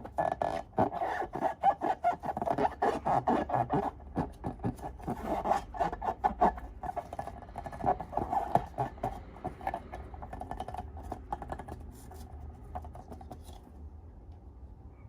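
Slime being squeezed and worked by hand: a dense run of small wet clicks and squelches that thins out and grows quieter over the last few seconds.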